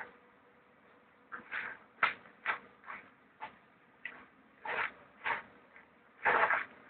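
A staff whooshing through the air as it is spun: a short swish about twice a second after a quiet first second, with a longer, louder whoosh near the end.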